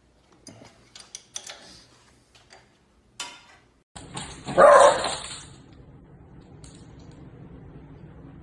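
Light clicks and taps of metal engine parts being handled, then a single loud dog bark a little before the middle, followed by steady background noise.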